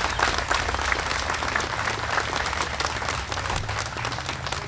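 Audience applauding, many people clapping at once; the clapping thins out toward the end.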